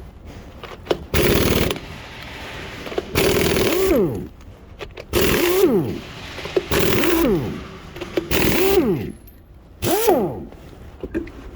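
An impact wrench spinning lug nuts on or off in six short hammering bursts, its motor winding down in pitch after each trigger release.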